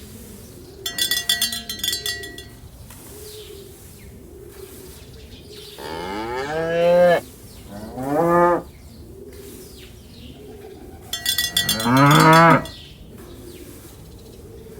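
Cattle mooing three times: a long moo about six seconds in, a shorter one just after, and a third near the end. A cowbell clanks in a short run about a second in, and again just before the last moo.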